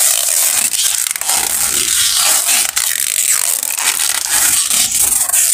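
Adhesive tape being pulled off the roll and wound around a seated person's legs: a loud, continuous scratchy ripping with a few brief breaks.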